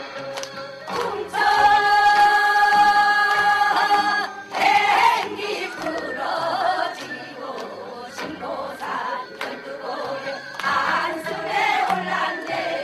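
A group of women singing a Gyeonggi folk song (Gyeonggi sori) together. They hold one long note for about three seconds starting just over a second in, then move into shorter, wavering melodic phrases, with short percussive strokes throughout.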